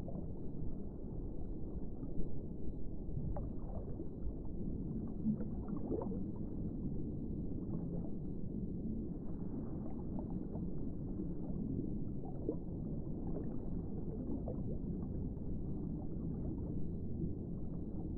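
Muffled underwater water noise, a steady low rumble with scattered faint clicks and pops.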